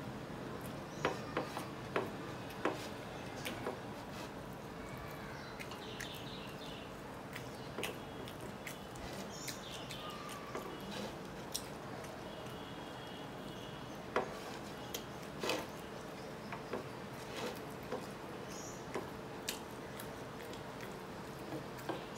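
Eating by hand: scattered sharp clicks and smacks of fingers on a ceramic plate and of chewing, a few at a time, over a steady hum from an electric table fan.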